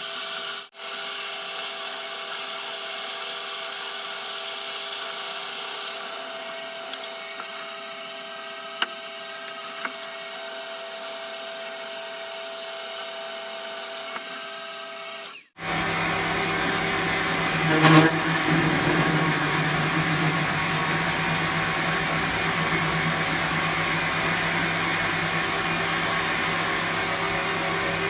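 Metal-cutting lathe running steadily with a whine of steady tones. About halfway through it breaks off and comes back louder and lower with a rougher cutting noise, which briefly gets louder a couple of seconds later.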